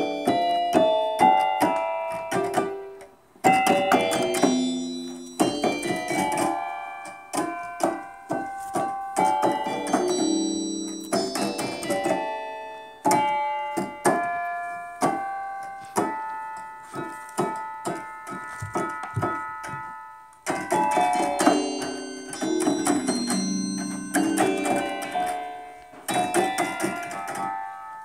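Casio CTK-631 electronic keyboard played with its tubular bell tone: many keys struck in quick runs at several pitches, each note ringing and fading like a bell, in imitation of railroad crossing bells. There are short breaks about three seconds in and about twenty seconds in.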